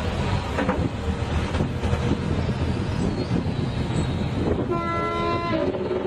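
A heavy machine's engine rumbling steadily, with a short, pitched horn-like tone just under five seconds in, followed by a single steady tone near the end.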